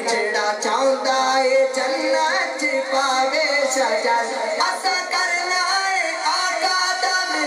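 A young man's voice singing a devotional naat into a handheld microphone, amplified through a sound system, the melody gliding and held without a break.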